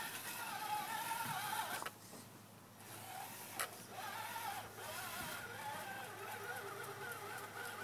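Electric motor and gearbox of a radio-controlled scale rock crawler whining as it crawls over rocks, the pitch wavering with the throttle. The whine stops for about a second near two seconds in, and a single sharp click comes before it picks up again.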